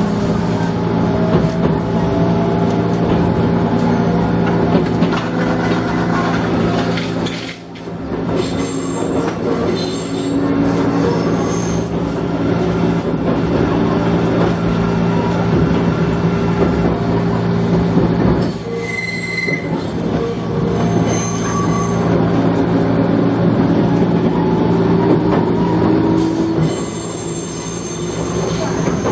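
Gakunan Railway electric train running, heard from inside the car: a steady mechanical hum with a motor whine rising in pitch near the start, wheel squeal and rail clatter. Loudness dips briefly about 7 seconds in.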